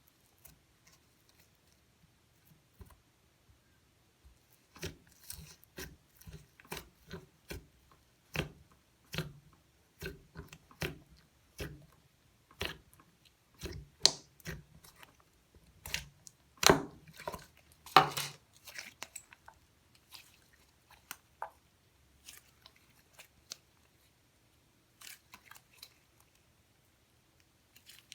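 Hands squishing and poking a cream slime, making irregular sticky clicks and small pops. These come thick and fast from about five to nineteen seconds in and are sparse otherwise.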